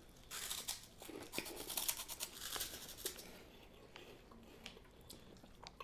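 Puffed corn snack sticks (corn potage umaibo) crunching as they are bitten and chewed: a dry, crisp crackle for about three seconds that then fades to a few faint clicks.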